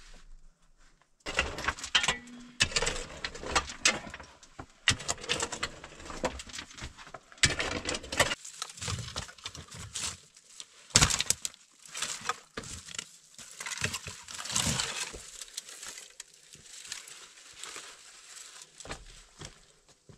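Stones knocking and scraping against one another, with footsteps on loose rock and gravel: an irregular run of sharp knocks and clicks, the loudest a single sharp knock about eleven seconds in.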